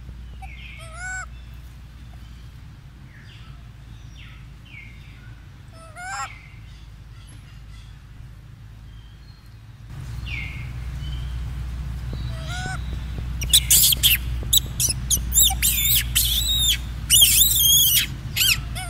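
Rhesus macaques calling: a few short, thin chirps in the first half, then from about thirteen seconds in a rapid run of loud, high-pitched squeals that rise and fall.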